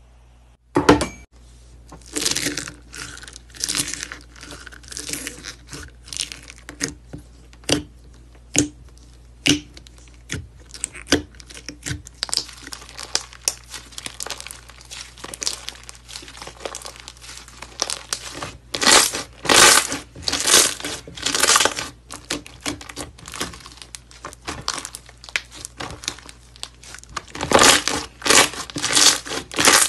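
Hands squeezing, kneading and pressing thick slime, with sticky crackling and sharp pops as air pockets burst. The pops come in quick runs separated by quieter squishing.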